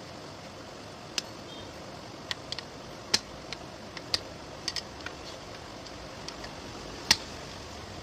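Short, irregular plastic clicks and snaps as a Bluetooth speaker's top cover and rubber ring are pressed and fitted into place by hand, the sharpest about three seconds in and near the end, over a steady low hiss.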